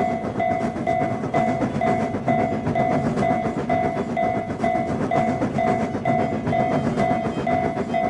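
Japanese railroad crossing (fumikiri) warning bell ringing, an even repeating ding about twice a second. Underneath is the rumbling run of a train.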